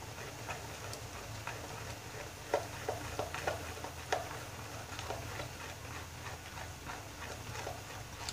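Light, irregular clicks and taps, clustered between about two and a half and four seconds in, over a low steady hum.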